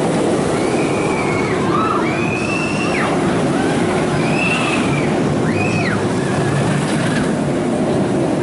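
A Bolliger & Mabillard steel looping coaster's train running through its inversions, a steady rumble of wheels on the steel track. Over it come several short, high, rising-and-falling screams from the riders.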